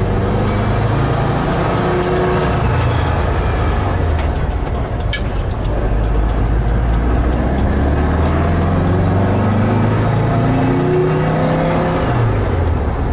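A 1970 Volkswagen van's rebuilt engine pulls through the gears, heard from inside the cab. Its note climbs steadily under acceleration, then drops near the end as the next gear goes in.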